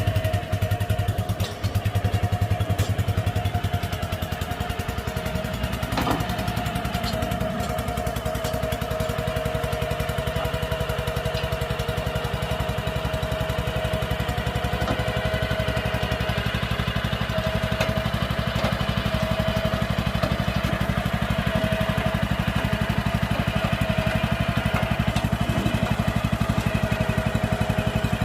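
Small engine running steadily with a fast, even firing beat and a steady whine over it.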